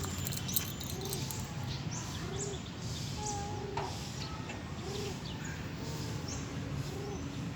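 Pigeons cooing: short, low, rise-and-fall coos about once a second, with a few faint higher chirps over a steady low rumble.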